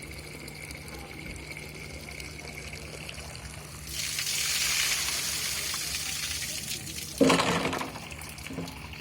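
Water rushing with a hiss for about three seconds, ending in a sudden heavy thump: a water hammer. A smaller knock follows a second or so later.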